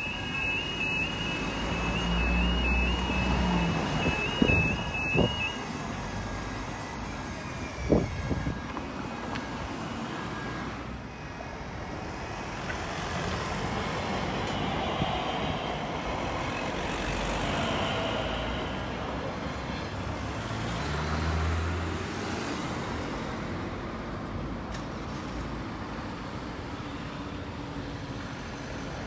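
Railway level crossing alarm warbling between two tones, stopping about five seconds in. Later an electric passenger train runs through the crossing, a rising and fading rush of wheels on rail over roughly ten seconds, with road traffic idling nearby.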